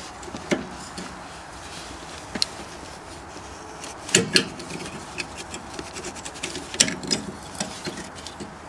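Metal-on-metal clicks and clinks from locking pliers gripping the parking-brake cable end and lever on a rear disc brake caliper as it is worked to pop the cable off. The clicks are scattered and irregular, loudest as a pair about four seconds in, with another cluster around seven seconds.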